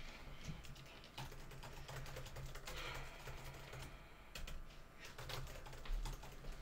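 Typing on a laptop keyboard: a fast, irregular run of key clicks.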